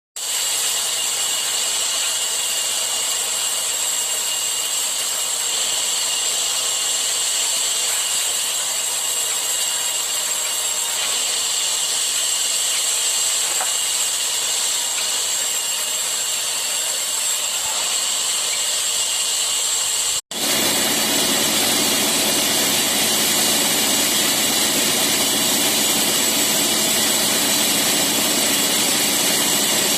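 Motorised saw running steadily as it cuts wood, with a high, even whine over a hiss. About 20 seconds in the sound breaks off for an instant and resumes with a heavier, lower running note.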